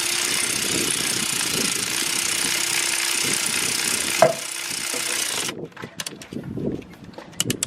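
Power ratchet spinning 13 mm bolts in: a steady whirring hum over a hiss that stops and restarts twice, then cuts off about five and a half seconds in. A run of light clicks follows.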